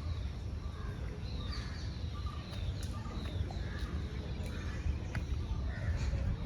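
Birds chirping and calling in short scattered notes over a steady low rumble of outdoor background noise.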